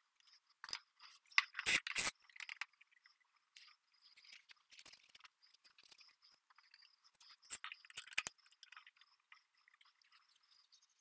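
Light clicks, knocks and scrapes of metal hardware being handled as a fence and clamps are set onto a steel drill press table. A cluster of knocks comes about a second and a half in and another about seven and a half seconds in, with faint scraping between.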